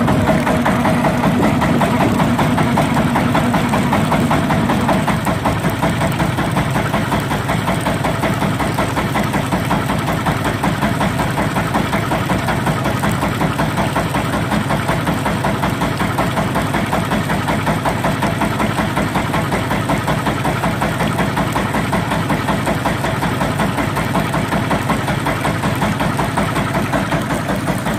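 A small river boat's engine running steadily under way, with a fast even beat of firing strokes.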